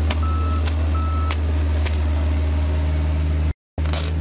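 A construction machine's engine running with a steady low hum, its reversing alarm beeping three times in the first second and a half. A few sharp knocks are heard between the beeps.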